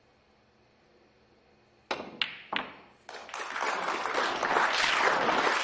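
Snooker cue striking the cue ball about two seconds in, followed by a few sharp clicks of balls hitting balls and cushions, then audience applause that builds from about three seconds in and stays loud.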